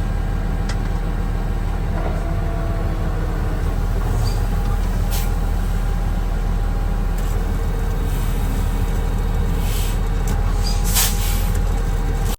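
Diesel engine of heavy farm machinery running steadily under load, a low, constant drone with a few faint clicks and a brief hiss near the end.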